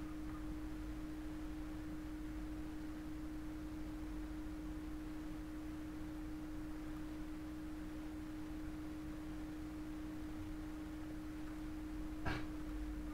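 A steady single-pitch hum with a low background rumble, unchanging throughout; a short click sounds about twelve seconds in.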